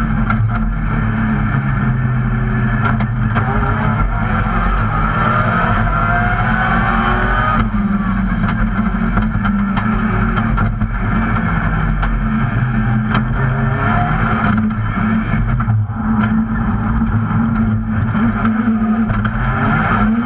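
Rally car's engine heard from inside the cabin at stage pace, revving up hard and dropping back sharply at gear changes or lifts, notably about 8 and 16 seconds in.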